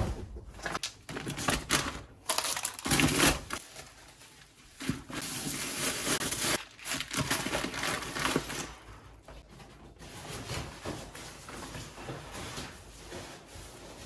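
Rustling and crinkling of backpacking gear and bags being handled and packed, with irregular clicks and knocks.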